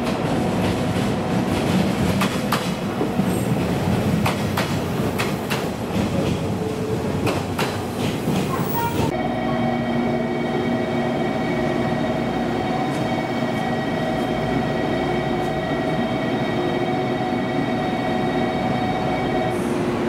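JR Kyushu 817-series electric train running alongside the platform, its wheels clicking over the rail joints. About nine seconds in this gives way abruptly to a steady electrical hum with several held tones.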